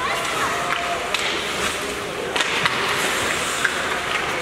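Youth ice hockey play: skate blades scraping the ice in hissing strokes, with several sharp clicks of sticks and puck and faint crowd voices behind.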